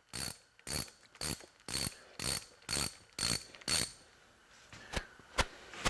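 Hand ratchet wrench being worked back and forth in about eight even rasping strokes, about two a second, then two sharp clicks near the end.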